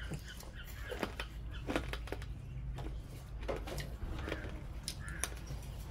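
Eating at a meal: chewing, with scattered light clicks and taps of food and utensils against plates, over a low steady hum.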